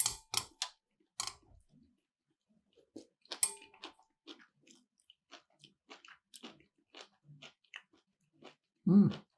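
Close-miked chewing of a bite of sushi with wasabi: a few sharp clicks at first, then steady wet chewing about twice a second, and a short hummed "mm" near the end.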